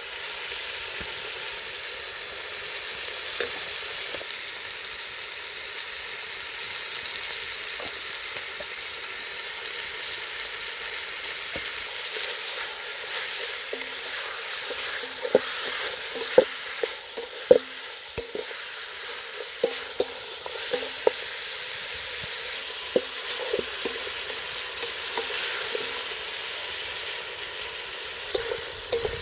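Pork pieces sizzling in a hot steel pot as they are stirred, with a steady frying hiss. Midway through comes a run of sharp knocks, the loudest sounds, as the wooden spoon strikes the pot.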